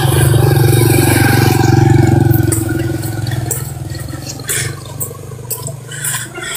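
A small motorbike engine runs loud and close, then fades over the first few seconds as it pulls away. Scattered clicks and scrapes follow.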